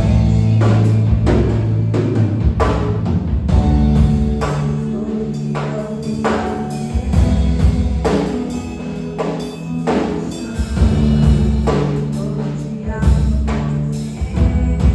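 Worship band playing an instrumental passage of a gospel song: regular drum-kit strokes over long held bass notes, without singing.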